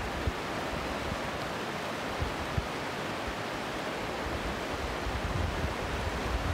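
Steady rush of a fast, shallow mountain river running over rocks, with wind buffeting the microphone in low rumbling thumps that come more often near the end.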